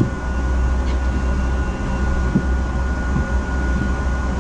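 Double-decker bus engine idling while the bus stands still: a steady low rumble heard from inside on the upper deck, with a thin steady high whine above it.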